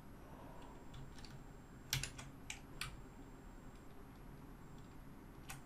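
Faint computer keyboard key presses: a few scattered short clicks, most of them between about two and three seconds in.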